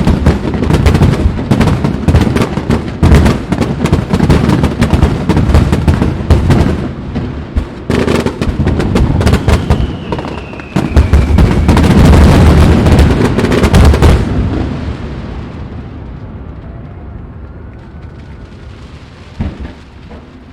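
Fireworks finale: a rapid barrage of shells bursting and crackling, densest in the last few seconds before it stops about two-thirds of the way in. The booms then die away in a long rolling echo, broken by one more bang near the end.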